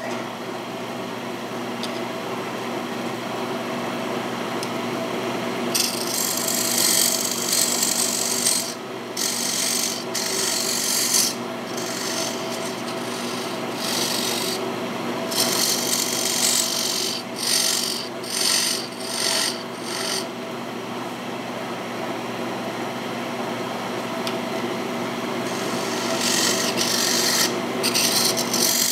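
Wood lathe running with a steady hum while a scraper cuts into a spinning rectangular mahogany blank. From about six seconds in, the scraper produces a loud, rough rasp in repeated bouts, with a pause before a last bout near the end.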